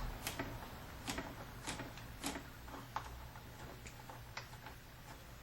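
Ratchet wrench clicking as it loosens the bolt holding a car door handle: sharp ticks roughly every half second, growing fainter after about three seconds.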